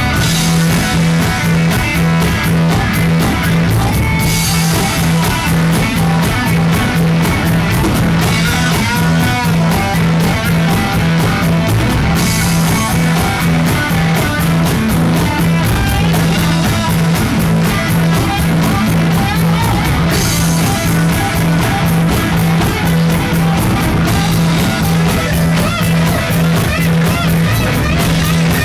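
Rock band playing live, electric guitar over a steady, evenly pulsing bass and drum beat, with cymbals swelling in every few bars.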